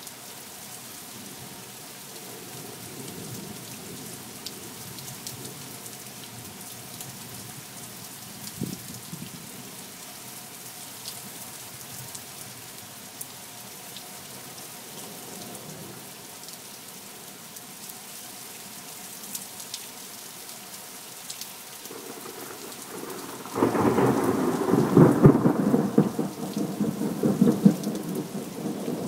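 Steady rain falling, with faint low rumbles of distant thunder. Near the end a much louder peal of thunder breaks in suddenly and rolls on.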